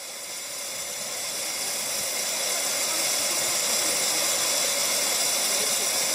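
Steady hiss of steam from a miniature steam locomotive, swelling over the first few seconds and then holding even.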